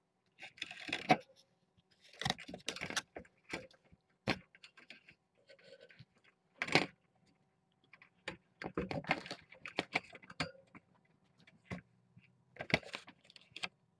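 Kittens playing on a play mat with toys: irregular clattering, rustling and scraping, with a few sharp knocks.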